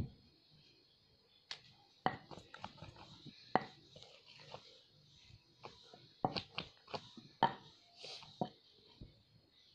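Wooden rolling pin knocking and clicking against a wooden rolling board as a round of dough is rolled out: an uneven run of short wooden knocks.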